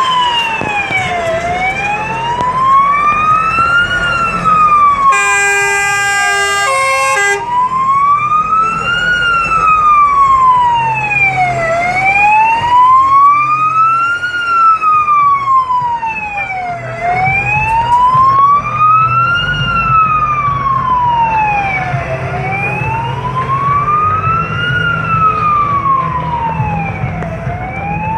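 Electronic wailing siren of a Scania GCBA 7/52 fire engine responding to an emergency call, sweeping slowly up and down about every five seconds over the truck's diesel engine rumble. About five seconds in, a two-note horn blast sounds for about two seconds.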